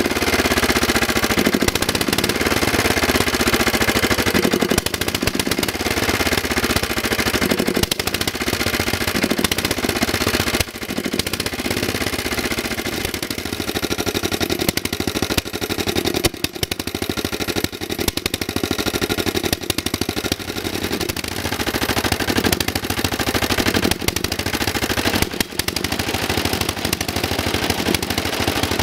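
Lombardini LAP 490 petrol engine on a BCS 20000 walk-behind mower running after a cold start: a rapid, even string of firing strokes, its speed rising and falling slightly every couple of seconds.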